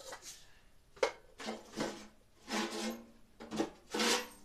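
Household items being handled and moved around: several short scrapes and knocks, a couple of them with a brief ringing tone.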